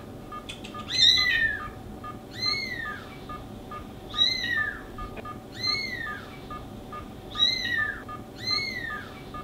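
High meow-like animal calls, each rising then falling, repeat about every one and a half seconds over a patient monitor's short steady beeps, about two a second, keeping time with the heartbeat.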